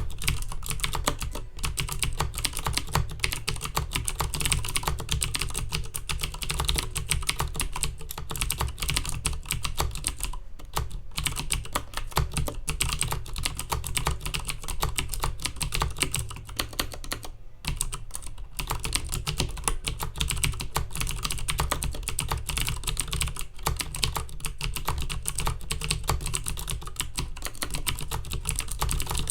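Fast continuous typing on a Filco Majestouch Minila Air mechanical keyboard with Cherry MX Blue switches: dense, clicky keystrokes, with two short pauses about a third and about three fifths of the way through.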